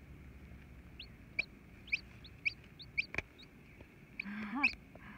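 Chick peeping: a run of short, high, falling peeps about every half second. Near the end comes a lower, rising cluck from the hen sitting on the eggs, and there is a single sharp click just after the middle.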